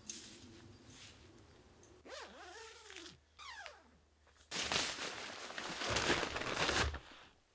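Tent door zip being pulled open, with the nylon fabric rustling: a long rough zipping from about four and a half to seven seconds in, the loudest sound here. A couple of short squeaky sliding sounds come before it, about two and three seconds in.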